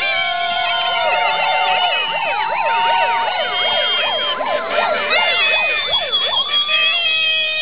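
Several sirens sounding at once, their pitches sweeping up and down and overlapping. The sweeps turn into a fast up-and-down yelp in the middle, then settle into steadier wails near the end.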